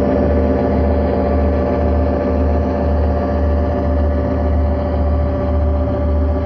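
Diesel passenger locomotive engine sound for a model Burlington streamlined diesel, running steadily with a low throb that pulses about twice a second.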